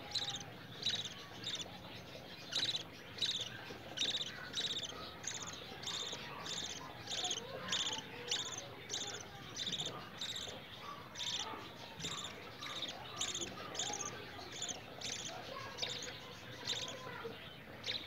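Begging calls of a 13-day-old budgie chick being hand-fed from a cup: short high chirps repeated about twice a second.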